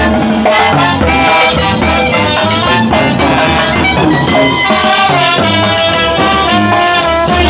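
Live brass band playing an upbeat Latin tune: trumpets and clarinet carry the melody over timbales and a bass drum keeping a steady beat.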